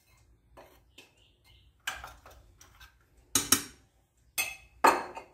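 Spoon and glass bowl clinking and knocking against the stainless steel bowl of an electric grain grinder as almonds and powdered sugar are added: several separate sharp clinks, the loudest about three and a half and five seconds in.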